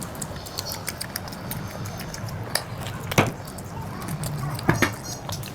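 Close-up eating sounds from mutton head curry: chewing with many short wet mouth clicks, and a few sharper snaps about three seconds in and near the end.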